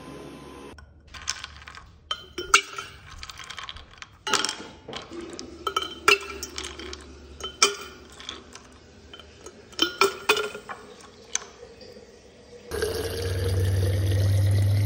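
Ice cubes dropped one at a time into a stainless-steel water bottle, each clinking against the metal. Near the end a refrigerator door water dispenser starts, running water into the bottle with a hum and a pitch that rises as the bottle fills. A cordless stick vacuum cuts off just after the start.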